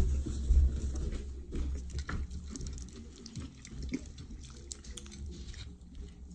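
Hands tearing apart cooked chicken on a plate: small tearing and crackling noises, with a few dull bumps in the first second.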